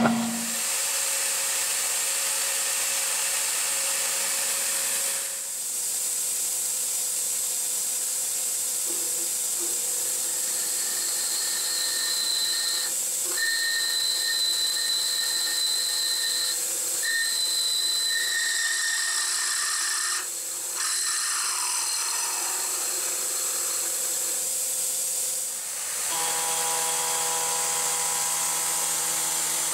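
CNC mill drilling lug bolt holes in a cast iron brake rotor, under a steady hiss from the coolant nozzles. The hiss dips briefly a few times, and a high thin whine from the drill comes and goes from about a third of the way in to past the middle. A lower machine hum starts near the end as the spindle changes tool.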